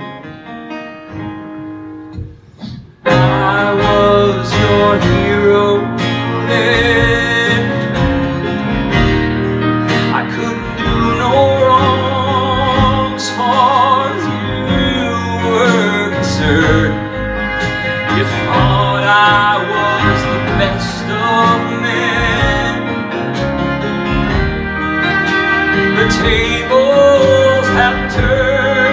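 Live folk-pop band of acoustic guitars, fiddle, bass and drums playing. It is soft for the first three seconds, then the full band comes in suddenly and loudly, and a man sings over it.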